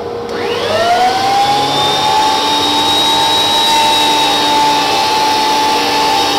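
Jet JWP-13BT benchtop planer switched on: its motor whines up to speed over about a second and then runs at a steady high whine, over the steady hum of a machine that was already running.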